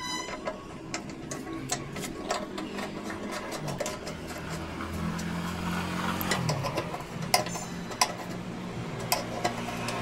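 A small engine running steadily, its pitch shifting a little near the middle, with many scattered metallic clicks and taps throughout.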